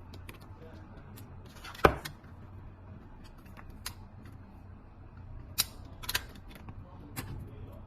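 A handful of short, sharp clicks and taps from small plastic wire connectors and wire being handled, the loudest about two seconds in.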